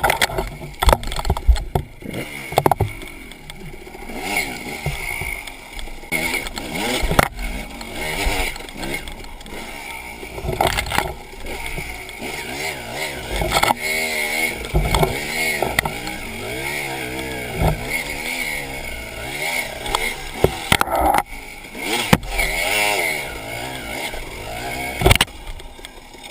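Enduro dirt bike engine revving up and down as it is ridden, its pitch rising and falling repeatedly, with frequent sharp knocks throughout.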